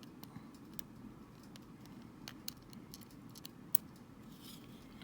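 Small scattered clicks and ticks of metal tweezers and a tiny screwdriver handling miniature screws against a Joy-Con controller's plastic shell, the sharpest click a little past halfway, over a low steady hum.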